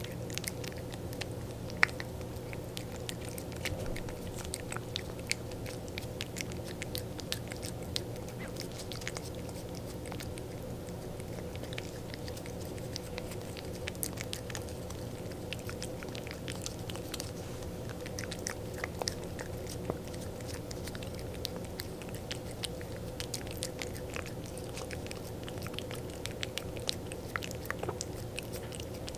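A cat licking a lickable treat from a squeeze tube: quick wet tongue smacks and clicks in an irregular patter, over a steady low hum.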